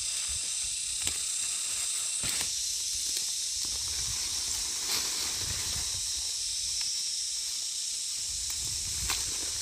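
Steady high-pitched hiss with a few faint clicks scattered through it.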